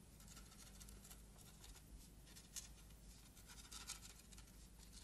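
Faint scratching of a quill pen on paper in a quiet room, with a few soft irregular ticks, a cluster of them just before four seconds in.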